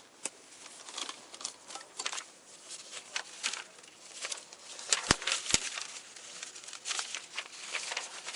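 Close rustling and crinkling handling noise with scattered small clicks, from clothing or objects rubbing near a body-worn camera's microphone, and two sharp knocks about five seconds in, half a second apart.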